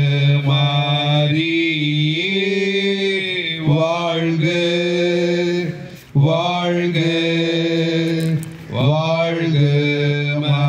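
A man chanting a slow sung prayer refrain in Tamil, holding each low note long on one pitch, in phrases of about two to three seconds.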